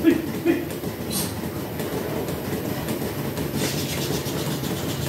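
Dairy milking-shed machinery running with a steady rumble and faint regular clicking, with two short sharp sounds right at the start.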